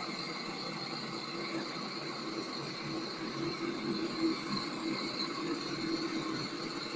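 Chevrolet FRR bus running with a steady mechanical hum and faint whine.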